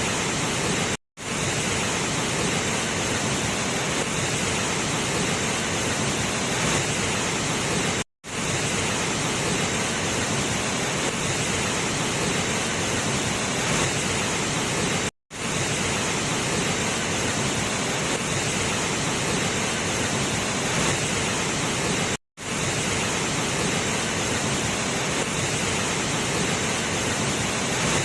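Waterfall pouring steadily: a loud, even rush of falling water. The sound drops out completely for a moment about every seven seconds.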